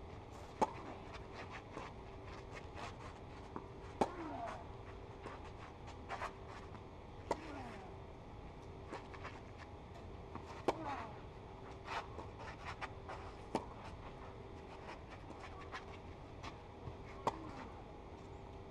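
Tennis rally: sharp pops of racket strings striking the ball, a loud hit about every three to four seconds with fainter hits in between, over a steady faint hum.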